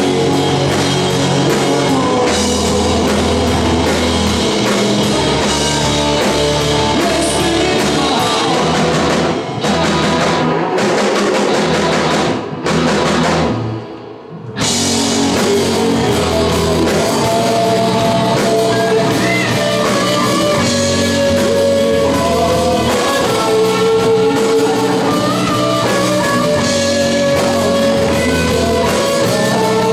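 A live rock band playing hard rock: electric guitar, bass and drum kit, with singing. The band drops out briefly about halfway through, then comes back in with lead guitar lines bending in pitch.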